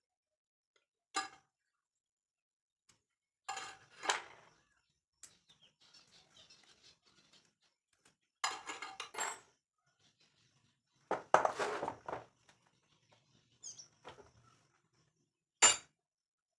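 Metal tools and engine parts being handled during a mini tiller diesel engine repair: a handful of separate clinks, knocks and clatters with quiet between them, the loudest clatter about eleven seconds in and a sharp click near the end.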